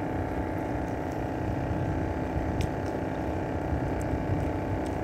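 Boat engine running steadily, an even low hum with no change in speed.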